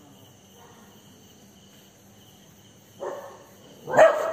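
Crickets chirping steadily in the dark, a faint even pulsing. About three seconds in a short call sounds, and near the end a much louder, sudden call cuts in over them.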